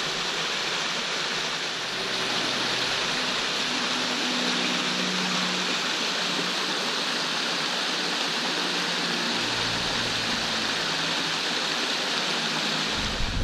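Small stream spilling over a rock ledge into a pool: a steady rush of falling water.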